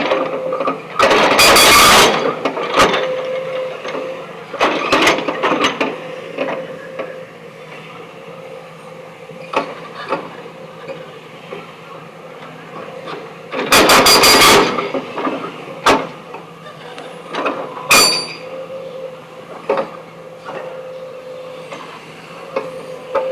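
Remote-control backhoe loader working stone: a steady motor hum with scattered clicks and knocks, and loud rattling bursts about a second in and again about 14 seconds in.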